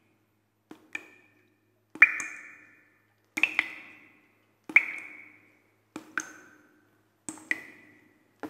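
Six evenly spaced struck taps, about one every 1.3 seconds, each a quick double click followed by a short ringing ping that dies away.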